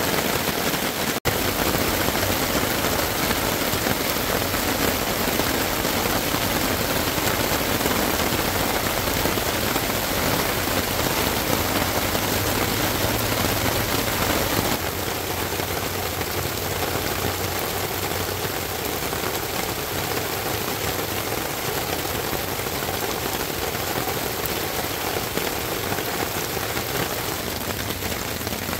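Heavy rain falling steadily, an even hiss that eases slightly about halfway through.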